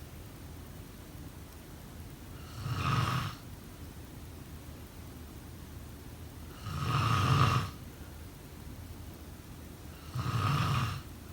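A person snoring: three loud snores about four seconds apart, the middle one the longest and loudest, with a steady low hum in between.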